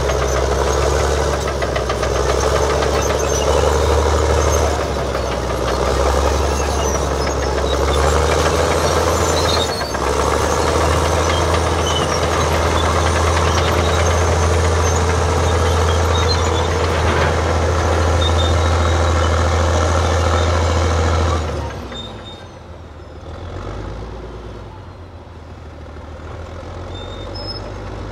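Allis Chalmers HD21A crawler dozer's diesel engine running steadily under load while it pushes dirt. The sound drops away sharply about three-quarters of the way through.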